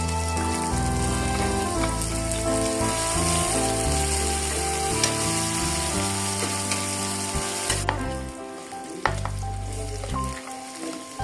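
Food frying and sizzling in a pan while being stirred. The sizzle drops away about eight seconds in, leaving a few sharp clicks.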